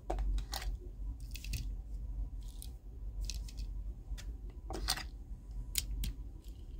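Handling noise of die-cast toy cars: a series of light, scattered clicks and scrapes as the small cars are picked up and set down on a display stand.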